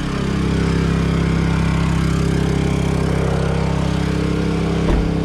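Honda portable generator running steadily at full throttle with its eco mode off, under load from charging an electric car. There is one short bump near the end.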